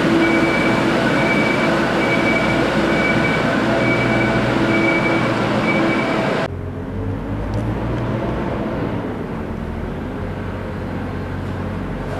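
Heavy mining machinery running in an underground rock salt mine tunnel: a dense, steady mechanical din with a high tone pulsing on and off. About six and a half seconds in it cuts abruptly to a duller low rumble.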